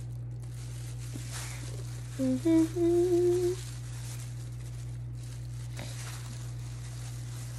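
A woman hums three short notes that rise in pitch, about two seconds in. A steady low hum runs underneath, with faint rustling of thin plastic gloves tossing chicken pieces in flour.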